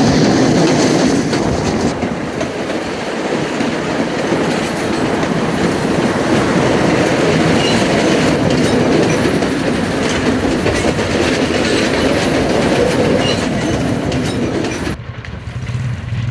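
Passenger train running along the rails: a loud, steady noise of wheels and carriage. About a second before the end it cuts off abruptly to a much quieter low hum.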